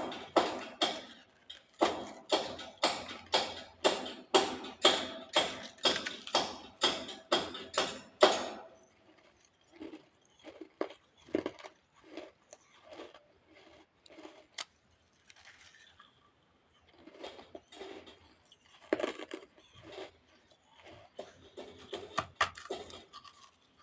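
Baked clay (mitti) being chewed: loud, regular crunches about two or three a second for the first eight seconds or so, then quieter, irregular crunching and clicks.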